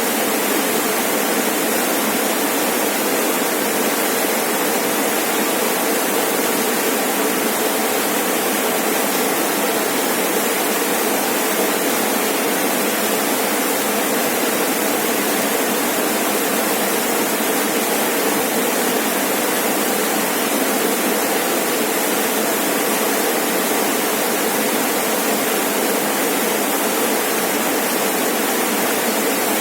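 Rainforest waterfall: water falling and splashing in a steady, even rush.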